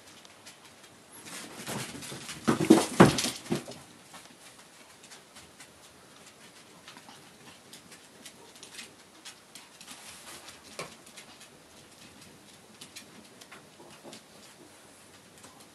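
Chihuahuas scampering and scuffling over a tatami mat while playing with a plush toy: a burst of scrabbling and knocking about two to three and a half seconds in, then scattered light taps of paws.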